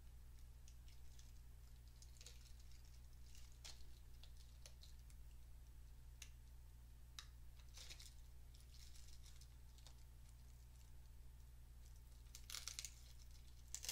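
Faint hand-handling noises: scattered small clicks and taps over a steady low hum, with a louder crinkling rustle near the end.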